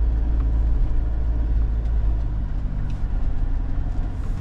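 Camper van engine and road noise heard from inside the cab while driving: a steady low rumble, with a few faint clicks.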